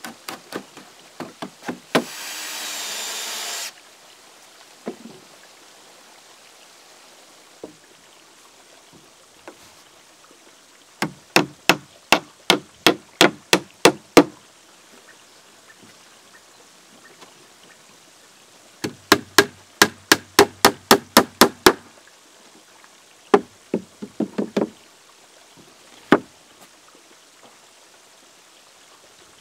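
Hammer driving nails into pine boards: runs of quick, sharp strikes, several a second, with pauses between the runs. About two seconds in, a short whir of a small power tool lasts under two seconds.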